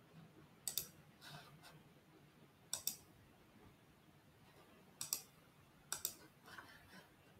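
Computer mouse button clicking: about four faint, separate clicks spread out over several seconds, with a few softer ticks between them.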